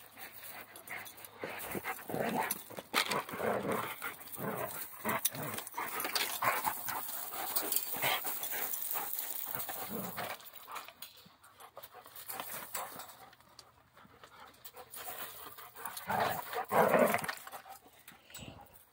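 Dogs playing, their noises coming in irregular short bursts for the first ten seconds or so, then again, loudest, about sixteen to seventeen seconds in.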